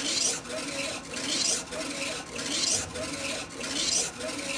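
Funsun DTF printer's printhead carriage shuttling back and forth across the film, a rhythmic hissing rasp on each pass with short gaps between, about one pass every second and a bit.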